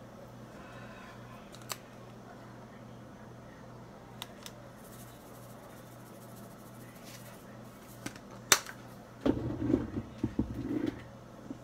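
Kitchen handling sounds at the stove: a plastic spice bottle shaken over a skillet, a few sharp clicks, the strongest about eight and a half seconds in, then a run of bumps and knocks for a couple of seconds. A steady low hum runs underneath.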